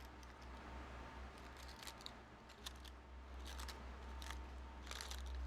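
Small scissors snipping thin strips of crinkled paper into tiny pieces: a series of short, crisp snips at irregular intervals.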